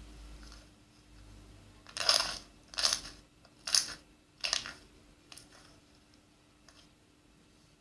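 Slime being played with by hand, giving four short, sharp crisp sounds at an even pace of a little under one a second, then two fainter ones.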